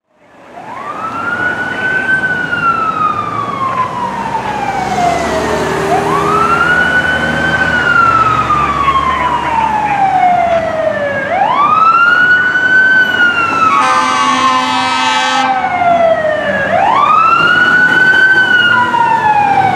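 Fire engine's siren on a slow wail: the pitch climbs quickly, then slides slowly down, about every five seconds. About three-quarters of the way in, a single horn blast lasts about a second and a half.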